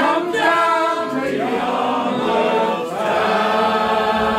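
A group of voices singing the chorus of a folk song together, a man's voice leading, with long held notes.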